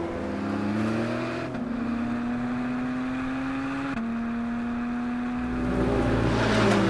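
Porsche 718 Cayman GT4 RS's naturally aspirated flat-six engine running hard on track. Its note climbs slowly and drops in pitch about a second and a half in and again about four seconds in. Near the end it grows louder and falls in pitch as the car goes past.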